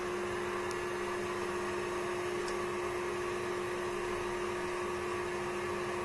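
Steady hum and hiss of a motor-driven nasal aspirator's suction running continuously, with a constant low tone.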